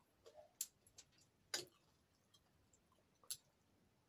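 Faint mouth sounds of eating by hand: a handful of short, sharp wet clicks and smacks of chewing, the loudest about a second and a half in and another just after three seconds.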